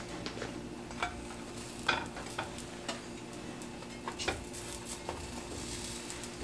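Butter and oil sizzling in stainless steel skillets under a frying egg and toasting bagel halves, with a few light taps and scrapes as the bagel halves are turned over by hand in the pan.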